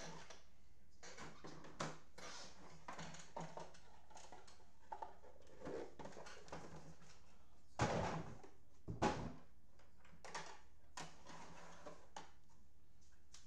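Rustling and light knocks of things being handled on a table, with two louder thumps about eight and nine seconds in.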